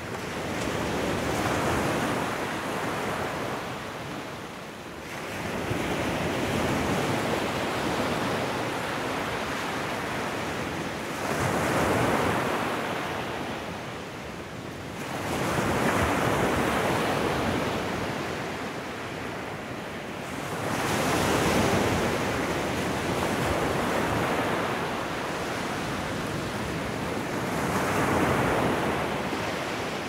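Ocean surf breaking on a shore: a steady wash of noise that swells and ebbs about every five seconds as each wave breaks and draws back.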